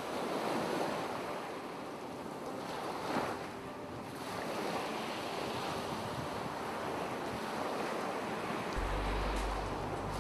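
Ocean waves breaking and washing on a shore, swelling and falling, with one stronger surge about three seconds in. A low steady hum comes in near the end.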